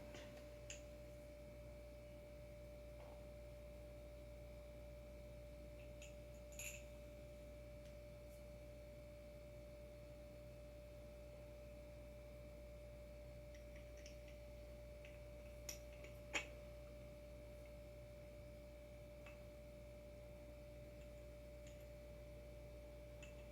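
Near silence: a faint, steady high-pitched electrical whine, with a few soft clicks about seven seconds in and twice around sixteen seconds in.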